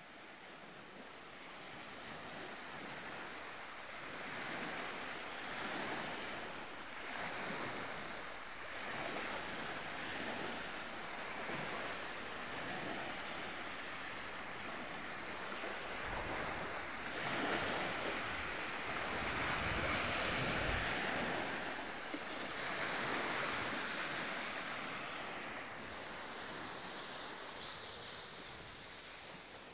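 Small waves breaking and washing up on a pebble beach, surging in every couple of seconds.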